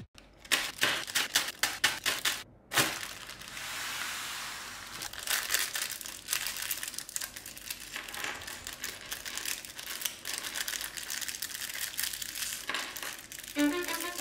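Packaging being opened and handled: crinkling and rustling with many quick irregular clicks and taps. Music starts near the end.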